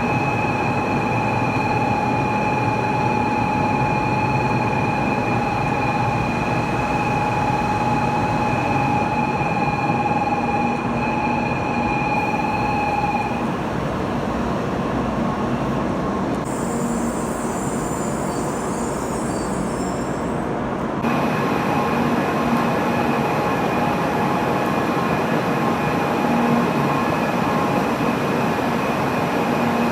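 Steady mechanical hum and noise of Shinkansen bullet trains at a station platform. A steady two-note whine runs through the first half and then stops, and the overall sound shifts abruptly twice, as between shots.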